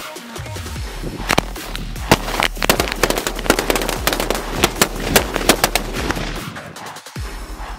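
A row of firecrackers going off in a rapid, irregular string of loud bangs with crackling between them. The bangs start about a second in and thin out after about six seconds.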